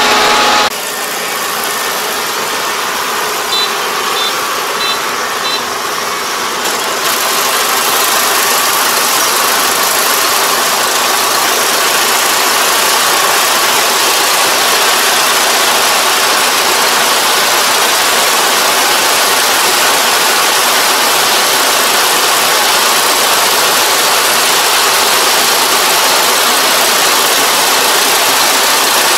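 Combine harvester running steadily, a dense mechanical noise. A short run of faint high beeps comes a few seconds in. About seven seconds in the noise grows louder and fuller, then holds steady.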